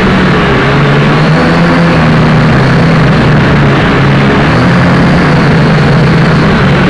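Small quadcopter's electric motors and propellers buzzing loudly, heard from a camera on board, with a hum whose pitch wavers slightly as the throttle changes.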